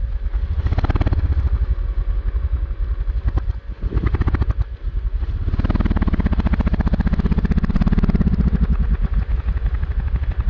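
Dirt bike engines running in quick, even firing pulses. A close engine ticks over while a second dirt bike is ridden up a steep, rutted dirt climb ahead. The engine sound gets louder and fuller about halfway through as the climbing bike is worked up the slope.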